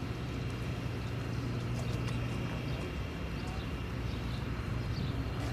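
Steady low drone of distant diesel locomotives, CP's GE ES44AC units leading a freight train still far off, with scattered faint high chirps over it.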